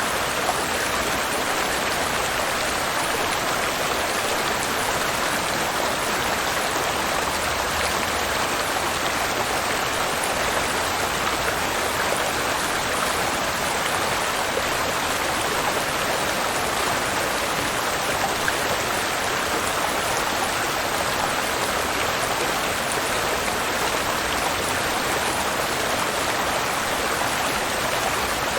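Waterfall and fast-flowing river water rushing, a steady, even hiss that does not change.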